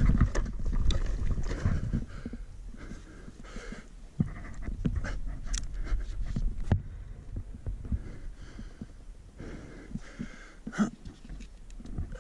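A rider's heavy breathing close to the microphone, a breath every second or two, with a low rumble in the first two seconds and scattered knocks and clicks as a hose spigot valve is handled.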